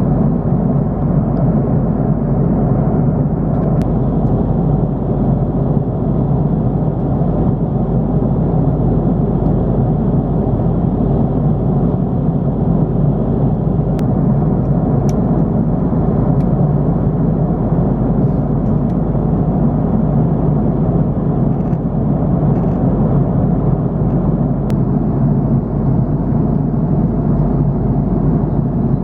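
Steady rumble inside the cabin of an Airbus A330-300 in flight: engine and airflow noise at an even level, with a few faint clicks.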